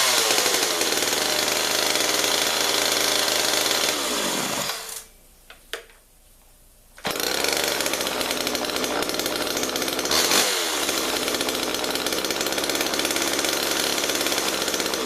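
Homelite Little XL two-stroke chainsaw running. Its pitch falls off a rev to idle at the start, then it cuts out about five seconds in. After two small clicks it is running again about two seconds later, with a quick throttle blip near the middle, and it goes on idling.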